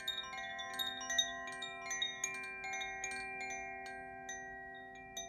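Earth Koshi chime ringing, its clapper striking the tuned metal rods at an irregular pace so that the clear tones overlap into a sustained shimmer. The strikes come thicker in the first two seconds and thin out toward the end.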